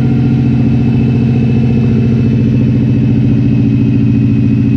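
2002 Subaru WRX's turbocharged flat-four engine idling steadily.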